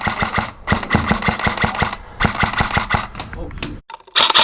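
Airsoft rifle firing full-auto in three rapid bursts with short pauses between, a fast string of sharp cracks. Just before the end it cuts off and a harsher, higher-pitched rattle begins.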